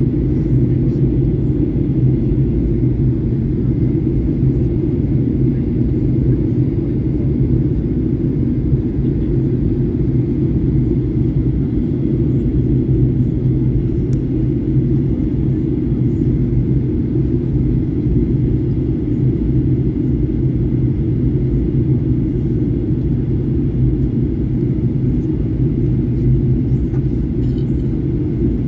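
Steady cabin noise of a Boeing 737-800 airliner in flight: an even, low rumble of engines and airflow with a faint, thin steady whine above it.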